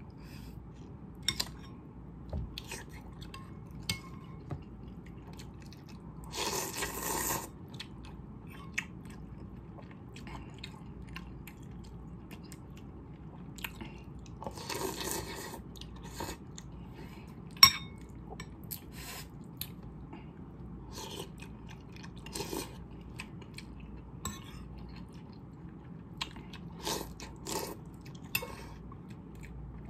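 Close-up eating sounds of a person eating instant noodles with boiled eggs: wet chewing and small mouth clicks throughout, two long slurps of noodles, one about a quarter of the way in and one about halfway, and a metal spoon clinking against the bowl.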